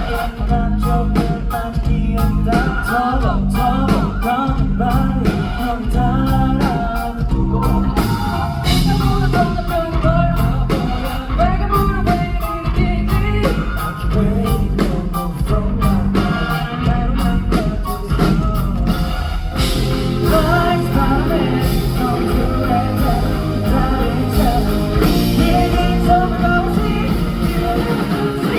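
Live rock band playing loud and continuously, with drums, bass and guitars under a sung lead vocal.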